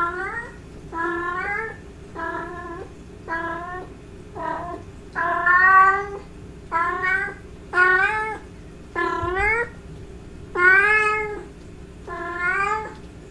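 Domestic cat giving a string of drawn-out courtship meows, about one call a second, each rising in pitch. These are the calling of a cat in heat.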